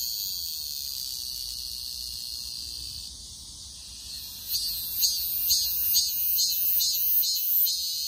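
Cicada singing: a steady high-pitched buzz that softens a little, then from about four and a half seconds in breaks into loud rhythmic pulses, about two a second, before settling back into a steady buzz near the end.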